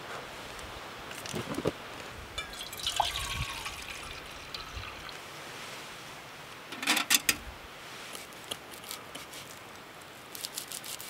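Handling of camp cooking gear: a stainless steel camp kettle clatters as it is set onto the stove about seven seconds in, and a knife blade taps on a wooden stump several times near the end, over a steady light hiss.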